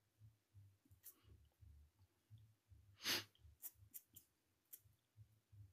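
Near silence with a few faint clicks and one short breath about three seconds in.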